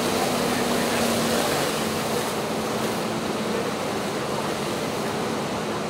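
Steady rushing noise at a working house fire, with a fire engine's motor humming under it; the hum fades about two seconds in.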